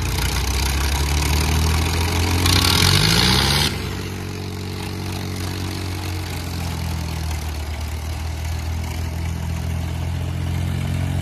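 Diesel tractor engines running steadily as the tractors drive slowly past. About two and a half seconds in, one engine revs up with a rising pitch. It is loudest for about a second, then drops back to a steady run.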